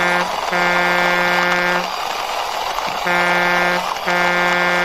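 Truck horn honking in repeated steady blasts, a short one then a longer one, twice over, over a steady rumbling background.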